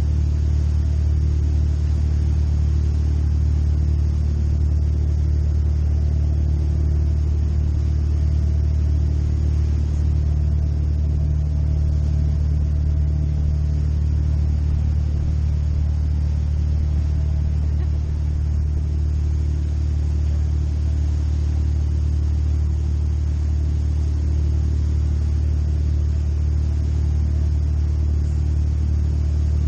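Boat engines droning steadily at cruising speed, with the rush of the churning wake along the hull.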